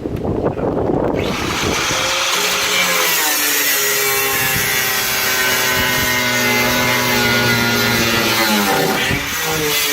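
Power tool cutting the car's steel floor and body panels: it starts about a second in and runs with a steady pitched whine, briefly dropping in pitch under load near the end.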